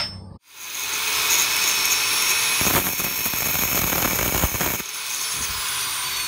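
Angle grinder with an abrasive cut-off disc: it starts up about half a second in with a high whine, then cuts through a steel bar for about two seconds with a harsher grinding noise. Near the end the cut finishes and the disc's whine falls as the grinder winds down.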